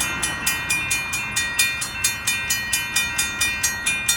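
Railroad grade-crossing bell ringing rapidly, about four strikes a second, each strike ringing on in a steady high tone: the crossing signals are active for an approaching train.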